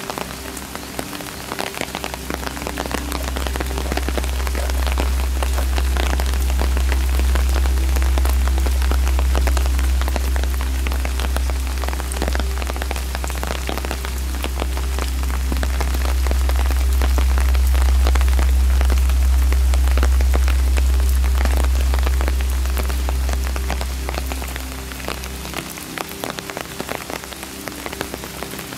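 Steady rain falling on trees and stone, with many single drops ticking close by. A deep low rumble swells in about two seconds in, is the loudest sound for most of the stretch, and drops away near the end.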